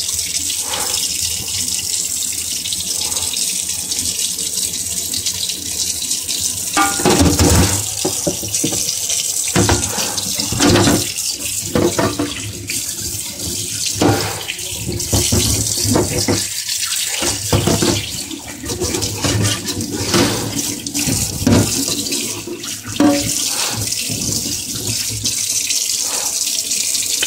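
Tap water running steadily into a sink, with irregular knocks and splashes throughout.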